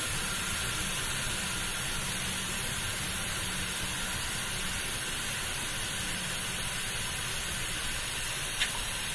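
Oil extractor hissing steadily as it draws the last engine oil out of the sump through a thin suction hose.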